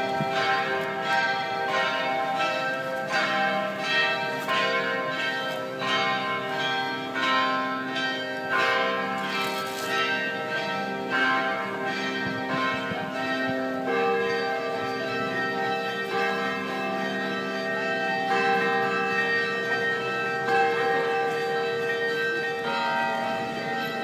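Several church bells ringing the noon peal together, new strokes coming every half second or so and their tones ringing on and overlapping.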